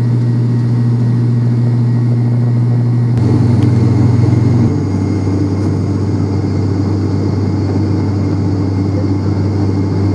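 Cabin drone of the ATR 42-500's Pratt & Whitney Canada PW127 turboprops and six-bladed propellers in the climb, a loud steady low hum. Between about three and five seconds in, the hum steps down in pitch and settles, as the propellers are slowed from takeoff to climb speed.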